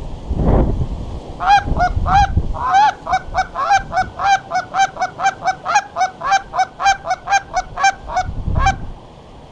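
Goose honking in a rapid, even run of about twenty honks, starting about a second and a half in and stopping near the end. Low wind buffeting on the microphone can be heard at the start.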